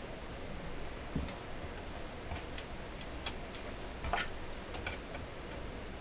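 Scattered light clicks and taps of small parts and tools being handled on a workbench, irregularly spaced, with the loudest click a little after four seconds in, over a steady low hiss.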